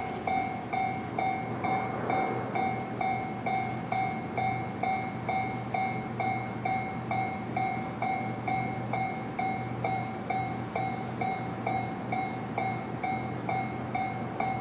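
Japanese railway level-crossing warning alarm ringing, its electronic two-tone ding repeating evenly a little over twice a second. The crossing is still closed for a train that has not yet arrived.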